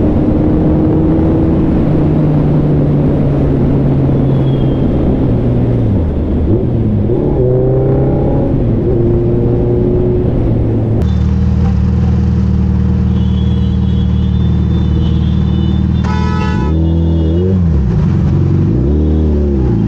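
Suzuki sport bike engine running under way in traffic; its pitch sags and climbs as the rider works the throttle and gears. Later come a few quick throttle blips, each rising and falling in pitch, and a short horn-like beep about sixteen seconds in.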